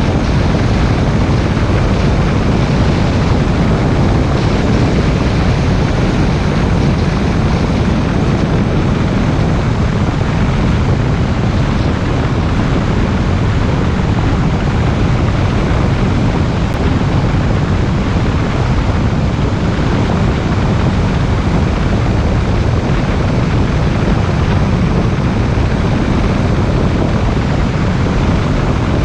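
Car driving at steady speed: continuous tyre-on-road and wind noise, a dense low rumble with a hiss above it, unchanging throughout.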